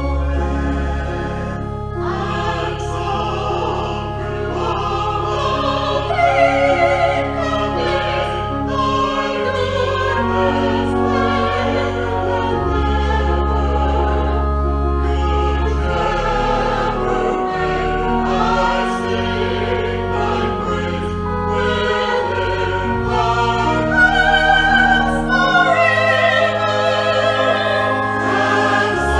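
Choir singing with instrumental accompaniment that holds long, sustained bass notes.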